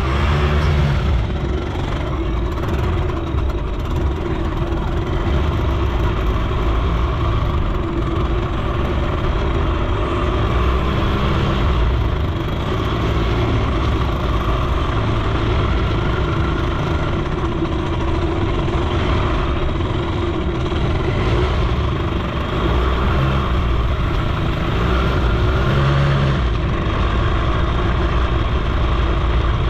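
Suzuki FZ 50 moped's small two-stroke single-cylinder engine running while the moped is ridden slowly along a dirt track. Its pitch rises and falls a few times, near the start and again towards the end, over a heavy low rumble.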